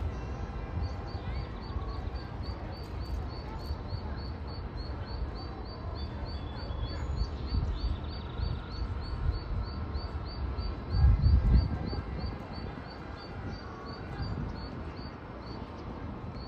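A lost mallard duckling peeping steadily and evenly, about two to three short high peeps a second, over a low rumbling noise that swells briefly about eleven seconds in.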